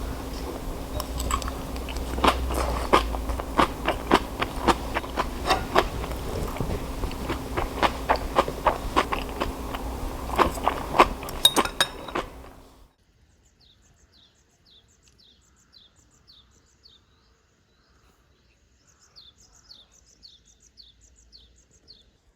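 Crunchy clicks and crackles over a steady low hum, like close-up eating, cutting off abruptly about thirteen seconds in. Then faint, high, repeated chirps from a small bird, coming in short runs.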